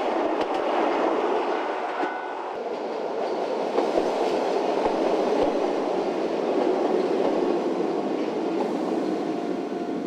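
Electric commuter train running past on the rails: a steady rumble of wheels on track, with a few short clacks.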